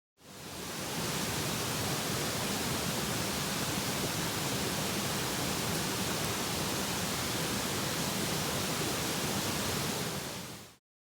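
Steady, even rushing noise that fades in at the start and fades out near the end.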